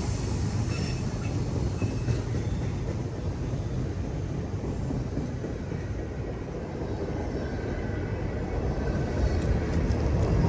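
Low, steady rumble of a heavy CSX manifest freight train, fading a little through the middle and building again toward the end.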